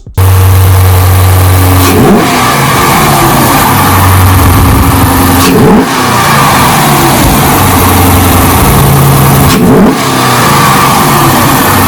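Dodge Challenger R/T's 5.7-litre Hemi V8, fitted with a Mopar cold air intake, running loud and steady, blipped three times, about two, six and ten seconds in, each rev rising and dropping back quickly.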